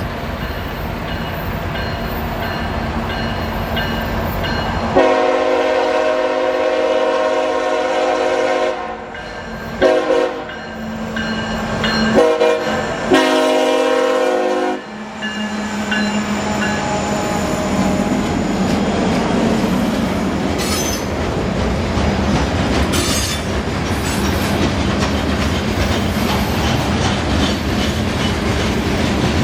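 Horn of a CSX freight train led by a GE ET44AH diesel-electric locomotive: a long chord blast followed by several more blasts, the pattern sounded for a road crossing. The train's engine rumble runs underneath, and after the horn stops the train keeps rolling past with steady rumbling and wheel clatter on the rails.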